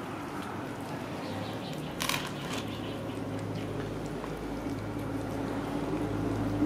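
Dogs and puppies eating rice from a plastic tray: faint chewing and snuffling ticks, with a sharp knock about two seconds in. A low motor hum grows louder toward the end.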